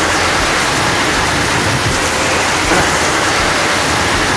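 Heavy rain falling steadily on a wet paved street.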